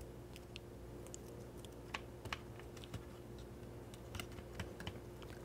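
Faint, scattered clicks and taps of fingers handling the plastic film chamber of a Kodak Instamatic camera while a roll of 35mm film is pressed into place, over a faint steady hum.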